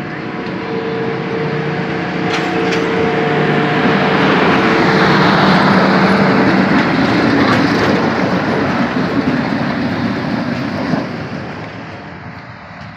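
A train passing close by, growing louder to a peak about halfway through and fading toward the end, with steady tones over the rail noise in the first half.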